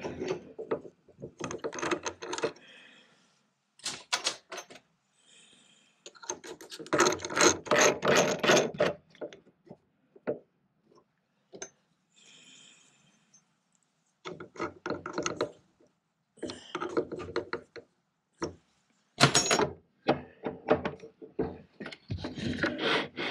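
Metal clicking and clattering of a pillar drill's chuck being loosened and tightened by hand while a milling cutter is swapped for a twist drill. It comes in several uneven bursts with pauses between, the loudest about seven to nine seconds in.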